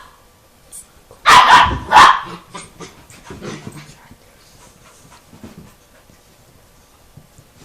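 Dogs at play: a burst of loud barks about a second in, followed by softer panting and small scattered clicks.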